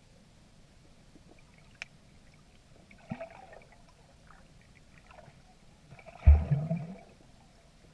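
Muffled underwater river sound picked up by a submerged camera: faint and hushed, with a small click, a knock about three seconds in, and a louder low thud with a short rumble about six seconds in.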